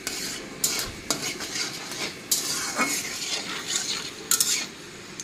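Metal spatula stirring and scraping in a metal kadai, with panch phoron and dried red chilli sizzling in hot oil; several scraping strokes over the frying.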